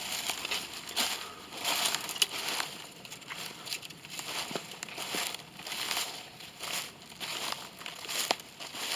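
Footsteps crunching through dry leaf litter at a walking pace, about one step a second, with a few sharp twig snaps.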